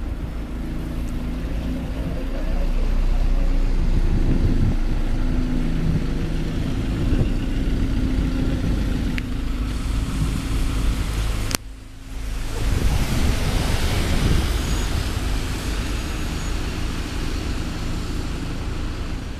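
Alexander Dennis Enviro200 single-decker bus engine running steadily as the bus drives past and pulls onto its stand, with tyre hiss on the wet road as it passes. A sharp click and a brief dip in the sound come about twelve seconds in.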